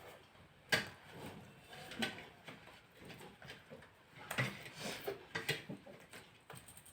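Close-up eating sounds from people eating chapati quickly: chewing and mouth sounds with a handful of short sharp clicks and knocks, the loudest about a second in and again around four to five seconds in.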